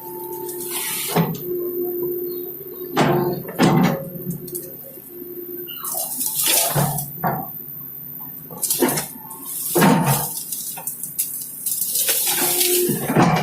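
Background music with held tones, broken about eight times by brief rushing bursts of noise.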